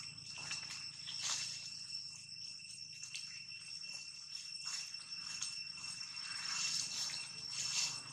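A chorus of insects shrilling steadily at a few fixed high pitches, with irregular light crackles and ticks over it.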